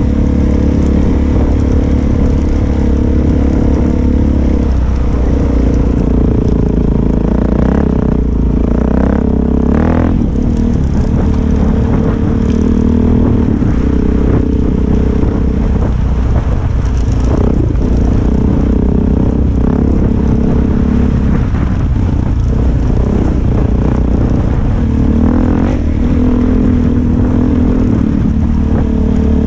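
Trail motorcycle engine running under load on a rough track, its pitch rising and falling as the throttle opens and closes. Stones and the bike's chassis clatter and knock over the rocky surface.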